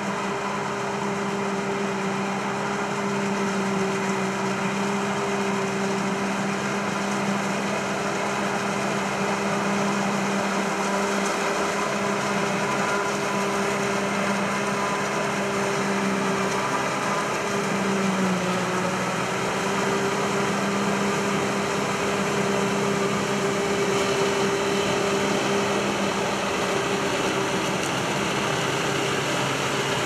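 Claas Jaguar self-propelled forage harvester and silage trucks working side by side in standing corn: a continuous machine drone with a steady low hum. The hum dips briefly in pitch about eighteen seconds in.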